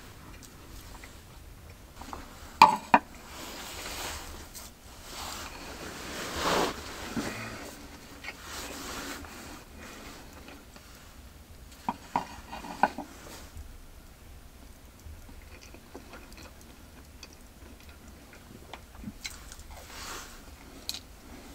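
Tableware clinking during a meal, with short sharp clicks in small clusters (a couple about two and a half seconds in, a few more about twelve seconds in) between stretches of soft rustling as food and gear are handled.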